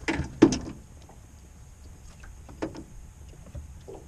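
A few sharp knocks: two loud ones right at the start, then two fainter ones later.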